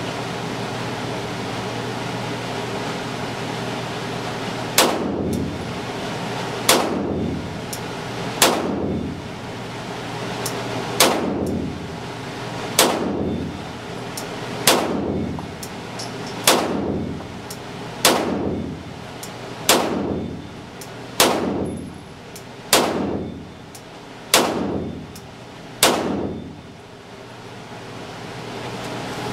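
Beretta 92FS Compact L INOX 9mm pistol fired thirteen times in slow, steady succession, a shot every one and a half to two seconds beginning about five seconds in. Each shot rings out with the echo of an indoor range, over a steady ventilation hum.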